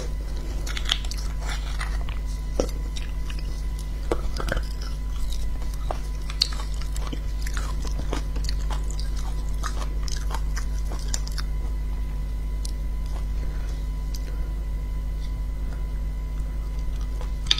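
Close-up chewing and wet mouth sounds of someone eating soft beef bone marrow, with many small clicks and smacks that thin out in the last few seconds, over a steady low hum.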